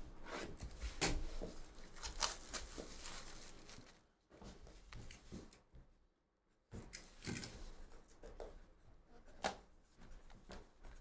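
Hands opening a sealed cardboard trading-card box: rustling and sharp clicks as the wrapping is worked off, a box cutter slitting the seal, and the lid flapped open. There is a short hush about halfway through.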